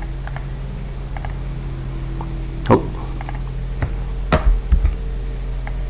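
Scattered clicks of a computer keyboard and mouse, a handful of separate keystrokes with two louder ones near the middle, over a steady low hum.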